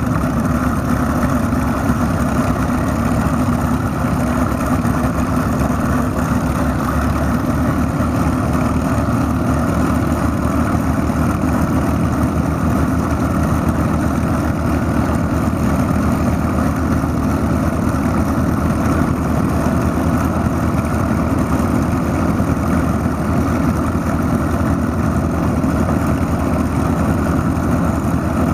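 Two P-51 Mustangs' V-12 piston engines idling together on the ground, propellers turning, a steady deep rumble with no change in speed.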